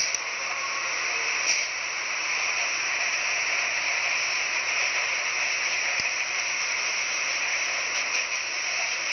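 Steady hiss of water spraying from fire hoses onto a burning building.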